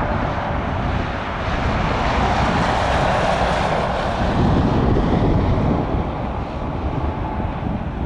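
Jet aircraft engines: a continuous loud rush that swells in the middle, with a deep rumble building near the end.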